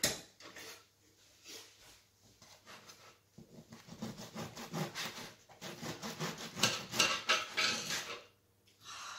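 A bread knife sawing back and forth through the crisp crust of a freshly baked onion baguette. A few light strokes come first. A fast, crunchy rasping follows for about five seconds, then stops shortly before the end.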